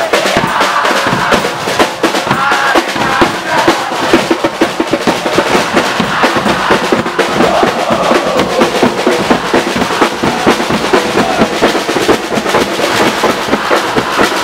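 Football supporters chanting and singing together in the stands over rapid, steady marching-drum beating on snare and tenor drums.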